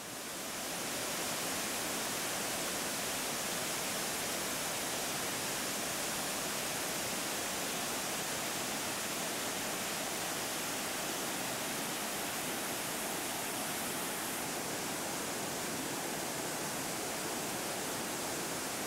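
Waterfall rushing: a steady, even sound of falling water that fades in over the first second and then holds level.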